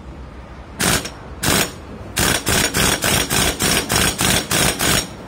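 Pneumatic impact wrench tightening a nut on a Honda EX5's clutch assembly, fired in short bursts: two, then a run of about nine at roughly three a second.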